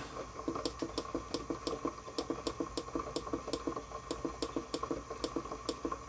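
Timer button on a digital ultrasonic cleaner's control panel pressed over and over, a quick even run of short ticks about four a second, as the cleaning time is stepped up from 5 to 20 minutes.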